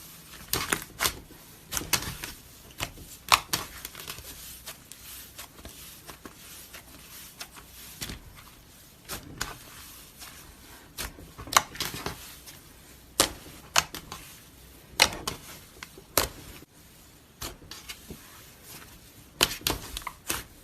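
Slime being squeezed and pressed by hand, giving irregular sharp clicks and pops, sometimes in quick clusters.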